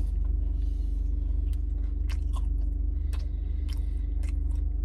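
A person chewing a mouthful of food, with many small wet clicks and smacks, over the steady low rumble inside a car.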